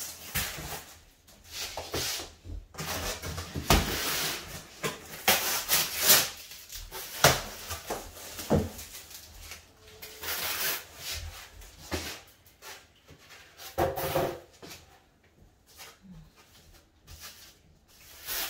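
Cardboard packaging being handled: flaps and panels scraped, pulled and set down in irregular rustling bursts, with plastic wrap crinkling near the end.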